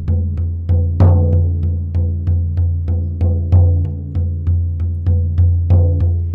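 Frame drum beaten with a beater in a steady beat of about three strokes a second, each stroke a deep, ringing boom, with a few strokes struck harder than the rest. It is the even, repetitive drumming used to carry a shamanic journey.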